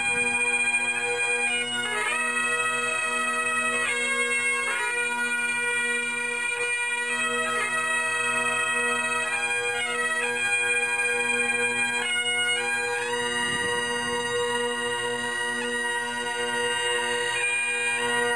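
Great Highland bagpipes playing: steady drones under a chanter melody of held notes.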